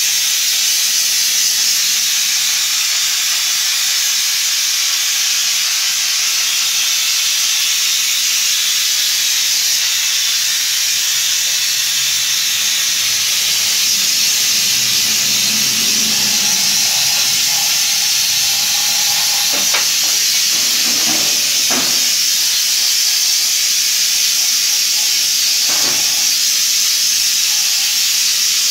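Compressed-air spray gun hissing steadily as it sprays a chrome-effect coating onto a glass. A few faint knocks come near the end.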